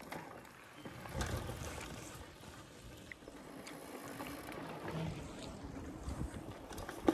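Wind buffeting the microphone in low, uneven swells, strongest about a second in, with a few faint light ticks.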